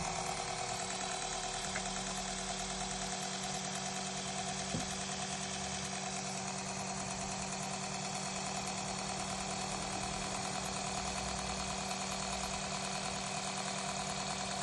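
Electric oil extractor pump running with a steady hum, sucking engine oil out through a pipe fed down the dipstick tube.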